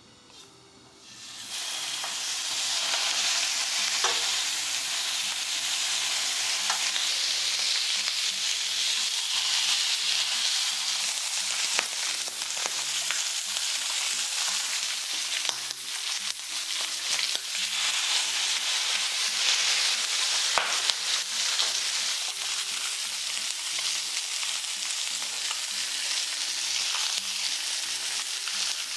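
Raw pork belly strips sizzling on a hot ridged griddle pan, the sizzle starting about a second in as the first strip goes down and then running on steadily. Occasional light clicks of metal tongs as the meat and side ingredients are moved on the pan.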